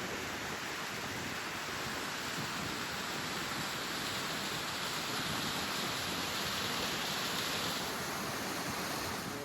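Steady rushing noise of the waterfall's falling water, even and unbroken, a little brighter in the middle.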